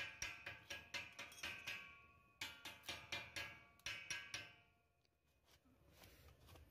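Chipping hammer knocking slag off a fresh stick weld on a square steel tube: quick metal taps with a short ring, about four a second. They pause briefly near 2 s and stop about 4.5 s in.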